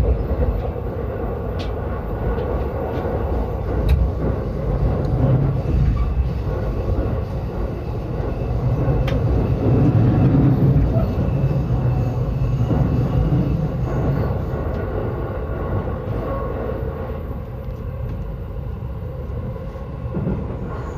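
Yokosuka Line electric commuter train running between stations, heard from inside the car: a steady rumble of wheels on rail that swells for a few seconds around the middle. A few light clicks sound over it.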